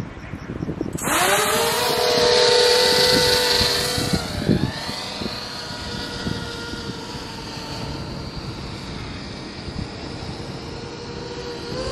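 Small FPV quadcopter's brushless motors and propellers, on a 4S battery, spinning up about a second in: a buzzing whine of several pitches over a hiss, loudest for the first few seconds. It then settles to a steadier, quieter whine, with a brief dip in pitch a few seconds later.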